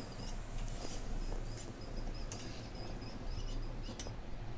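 Banana pancake batter cooking in an oiled nonstick pan, with faint crackling, many short high chirps and a low steady hum. A sharp click comes near the end.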